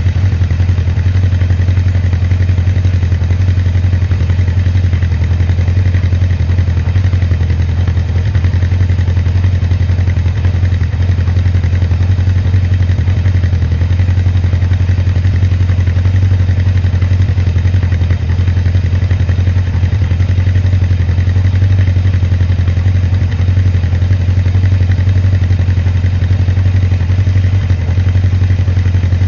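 Motorcycle engine idling steadily, a constant low even throb that neither revs up nor dies down.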